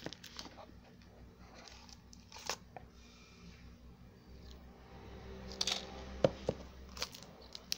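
Packaging handling: a glasses case being lifted out of a cardboard box, with scattered rustles, light taps and clicks, the sharpest click a little after six seconds.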